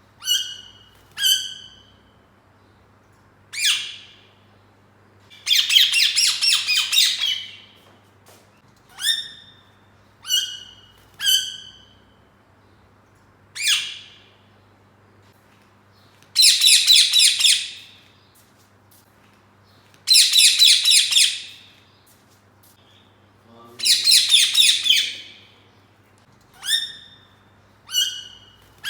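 Green ringneck parrot (rose-ringed parakeet) calling: short sharp squawks that drop in pitch, given one at a time, broken by four longer runs of rapid repeated screeching notes lasting one to two seconds each.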